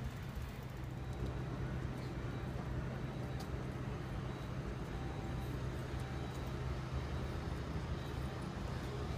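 Steady low hum of a stationary tram standing at the stop, over faint street background with a few light clicks.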